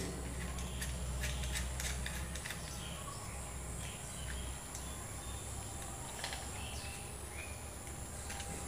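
Quiet background with a steady low hum and a thin, steady high-pitched tone. A few faint clicks come from a screwdriver working the terminal screws of a wall switch.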